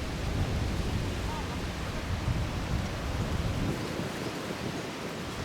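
Steady rush of water cascading from the discharge outlets of the Tsujun Bridge stone aqueduct, heavy in the low end.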